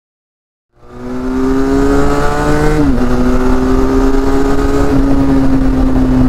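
Parallel-twin motorcycle engine running steadily on the road. It fades in after about a second of silence and holds a steady note, with a slight dip in pitch about three seconds in.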